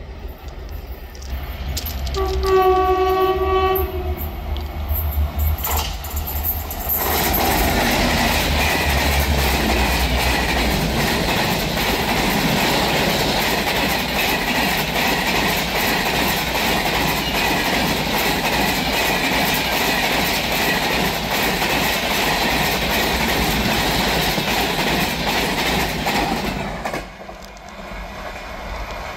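WAP-7 electric locomotive sounding one horn blast of about two seconds as it approaches, then an express train of LHB coaches passing close with a loud, steady rush of wheel and rail noise and clickety-clack over the rail joints. The noise falls away suddenly near the end as the last coach goes by.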